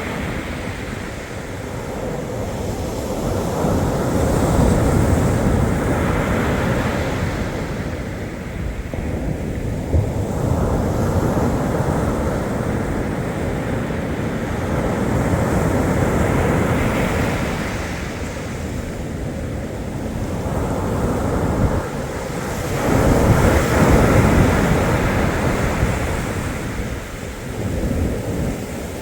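Black Sea waves breaking and washing in slow swells that rise and fall every several seconds, with wind buffeting the microphone.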